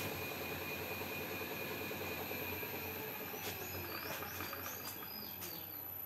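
Metal lathe running with its chuck spinning, a steady hum that fades over the last few seconds as the lathe is switched off and coasts down.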